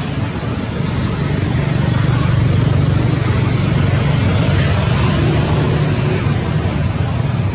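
Low, steady rumble of road traffic, swelling about two seconds in and easing off a little near the end.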